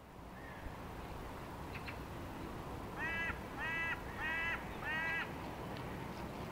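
A crow cawing four times in a row, about two-thirds of a second apart, starting about halfway through.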